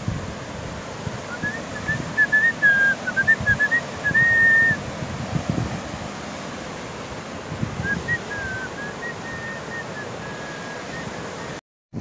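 Someone whistling a short tune in two phrases, the first ending on a held note, over low gusts of wind on the microphone.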